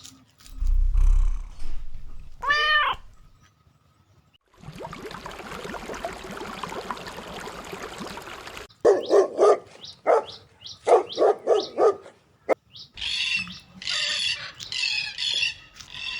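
A dog barking in a quick run of short barks, then higher-pitched yapping, after a single pitched cry and a stretch of steady hissing noise.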